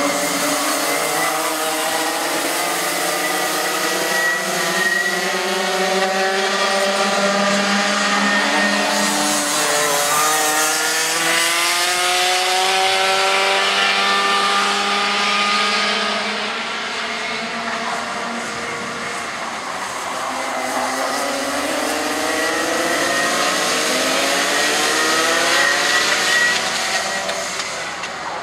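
A pack of two-stroke racing kart engines running at once, their pitches rising and overlapping as the karts accelerate out of the corners and lifting off again. Louder in the first half and again near the end as the pack comes closer.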